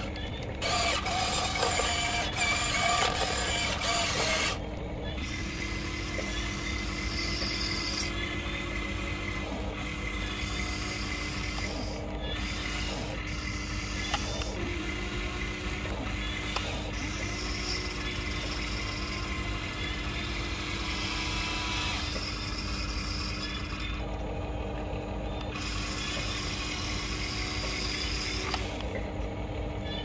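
Huina remote-control excavator's electric motors and gears whining as it works its boom and bucket, with a steady hum underneath. It is louder and brighter for the first few seconds, then settles to an even running whine.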